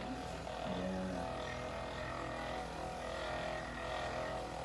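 Handheld percussion massage gun running steadily, a motor whine, while pressed against the muscles of a person's upper back.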